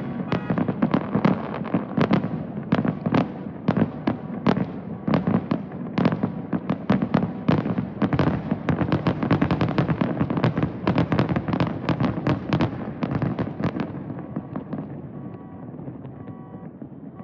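A fast barrage of aerial fireworks bursting, many sharp bangs a second in a dense finale-like volley, which thins out and dies away after about fourteen seconds. Near the end, faint steady horn-like tones come through.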